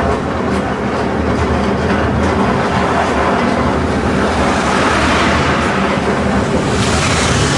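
Horse-drawn tram rolling along its rails: a steady rumble and rattle of the wheels on the track. A car passing close by swells with a rising hiss about five seconds in.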